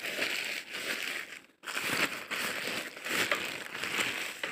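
Thin plastic carry bag crinkling and crackling as a hand presses and kneads soft steamed rice-flour dough inside it, in repeated strokes with a brief pause about a second and a half in.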